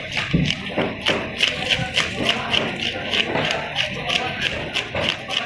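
A hand fish scaler scraping scales off a large black bass in quick repeated strokes, about three a second.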